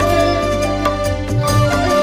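Instrumental music with held melody notes over a steady low bass line.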